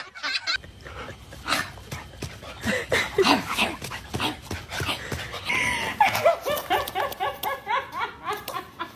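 A dog whimpering and yipping, with a run of short pitched cries in quick succession in the second half.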